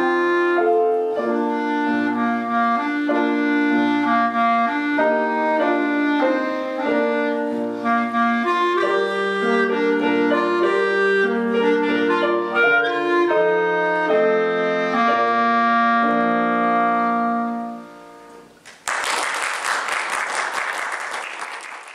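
Clarinet playing a melody over piano accompaniment, ending on a long held note that fades away. After a short pause, applause breaks out for the last few seconds.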